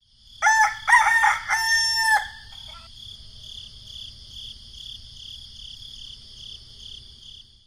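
A rooster crows once: a cock-a-doodle-doo of short notes ending in a long held note, in the first two seconds. After it a faint, high chirping pulses about twice a second.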